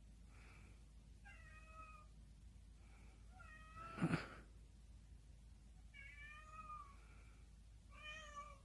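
Cat meowing: four short meows spread out, each with a slight downward bend in pitch. About four seconds in there is one sharp thump, the loudest sound.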